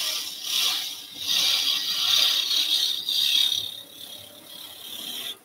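Woodturning gouge cutting a spinning wooden blank on a lathe: a high hiss of shavings coming off, rising and falling over three or four passes and stopping suddenly near the end.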